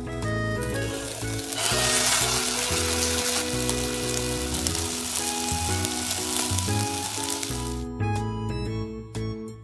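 Food sizzling on the heat of a campfire, a loud steady hiss that starts about one and a half seconds in and cuts off abruptly near the end, over background music.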